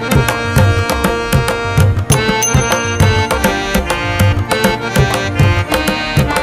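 Background music with a steady hand-drum beat under sustained melodic notes.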